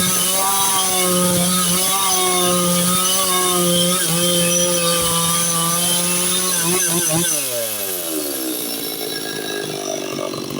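Stihl 660 two-stroke chainsaw running at full throttle while cutting boards from a log, its pitch wavering slightly under load. About seven seconds in the throttle is released and the engine speed falls steeply toward idle.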